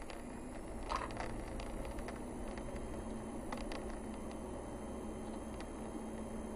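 Car driving along a narrow paved forest road, heard from inside the cabin: steady low engine and tyre rumble with a few sharp knocks and clicks, the loudest about a second in.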